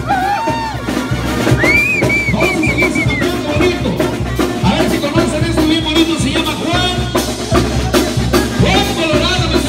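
Loud dance music with a steady drum beat and a wavering high melody on top.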